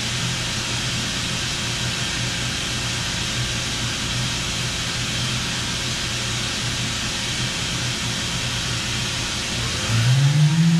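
Doosan DNM 5700 vertical machining center running with a steady hum and hiss. About ten seconds in, a whine rises quickly in pitch and then holds steady, as the spindle speeds up.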